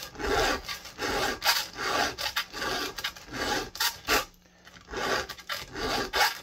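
Chainsaw chain being hand-sharpened with a round file: the file rasps across the cutters in short, even strokes, about two a second, with a brief pause a little after four seconds.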